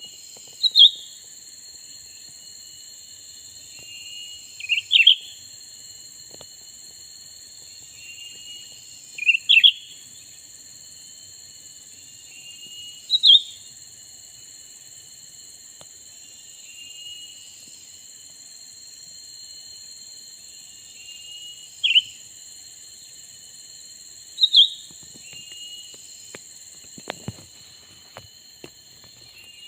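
Cucak ranting calls: short, loud, high notes, some doubled, about six times with pauses of several seconds between them. Under them runs a steady high insect buzz with a thin, constant whine.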